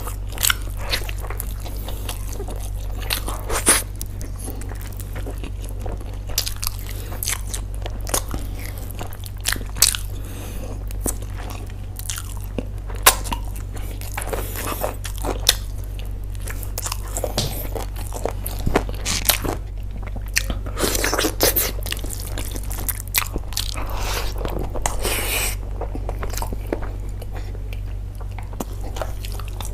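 A person chewing and biting food with irregular wet clicks and crunches, over a steady low hum.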